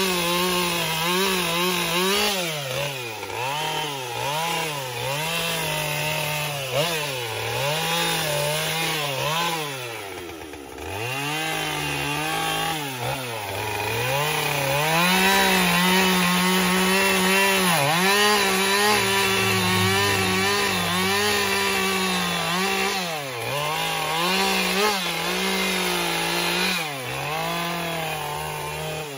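Two-stroke chainsaw carving into a wooden log, its engine pitch rising and falling continuously as the throttle is worked and the chain bites and bogs in the wood. About ten seconds in it eases off to a lower, quieter run before revving back up.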